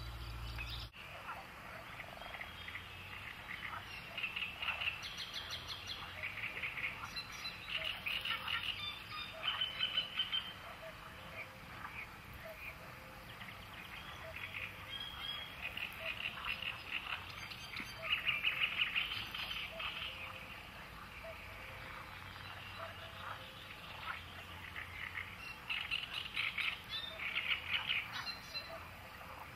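Bursts of rapid, pulsing animal calls, each a second or two long, recurring every few seconds over a soft outdoor background. A low hum cuts off about a second in.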